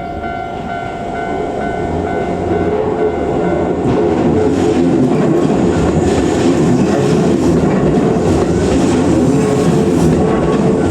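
Japanese level-crossing warning bell ringing at an even beat, fading under the noise of an approaching electric commuter train. From about four seconds in the train passes close by, loud, its wheels clicking regularly over the rail joints.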